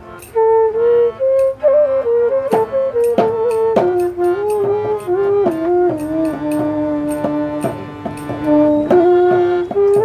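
Background instrumental music: a flute melody of held notes joined by slides, with light percussive taps.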